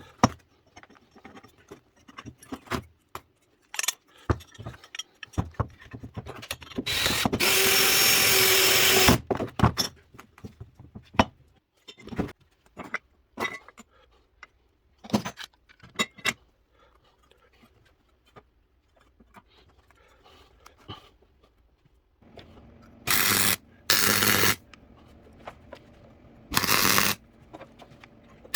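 Power tool run in short bursts: one run of about two seconds, then three brief bursts near the end, with scattered clicks and knocks of tool handling in between.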